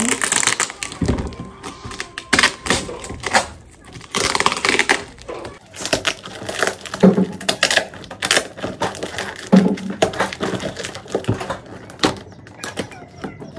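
Delivery parcel being opened by hand: packaging crinkling and tearing in irregular bursts, with short knocks between.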